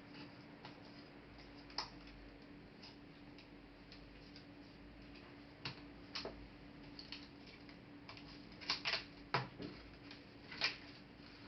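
Scattered light clicks and taps of small laptop parts being handled during disassembly, with a few louder clicks near the end, over a faint steady hum.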